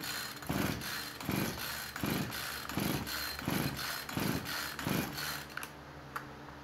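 Husqvarna 445 chainsaw's two-stroke engine cranked by repeated pulls on its recoil starter, about seven pulls in quick succession, with a compression gauge in place of the spark plug so the engine does not fire. The cylinder reads about 120 psi, good compression.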